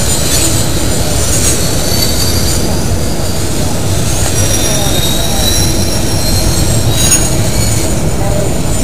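Double-stack intermodal freight cars rolling past, a loud steady rumble of wheels on rail with thin high-pitched wheel squeals drifting in and out over it.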